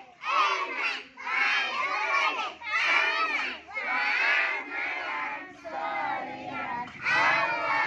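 A group of young children shouting a chant together in short, loud phrases, about one phrase a second.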